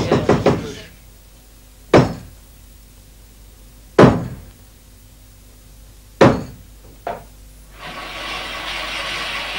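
Three loud, evenly spaced knocks on a wooden stage floor, about two seconds apart, with a fainter fourth knock soon after: the traditional knocks that signal a theatre show is about to begin. A soft, rising murmur of sound follows near the end.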